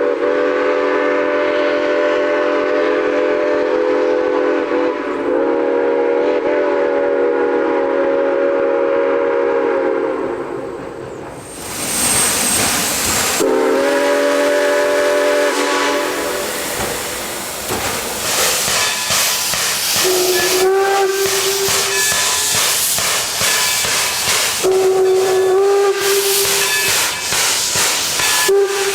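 Steam locomotive chime whistle sounding a long chord of several notes for about ten seconds, with a short break about five seconds in. A burst of steam hiss and a shorter chord blast follow. After that, loud steam hiss, with a single-note whistle sounding three blasts in the second half.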